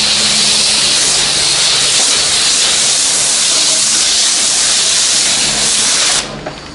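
High-pressure wand at a self-service car wash spraying, a loud steady hiss with a low hum underneath, cutting off suddenly about six seconds in when the spray stops.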